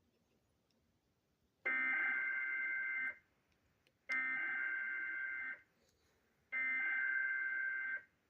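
EAS SAME digital header from a NOAA Weather Radio transmitter: three identical bursts of buzzing data tones, each about a second and a half long with a second's pause between them. It marks the start of a new alert, here a severe thunderstorm warning.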